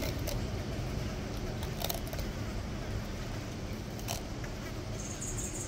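Aldabra giant tortoise biting into a mini cucumber: a few sharp crunches about two seconds apart, near the start, about two seconds in and about four seconds in, over a steady low rumble.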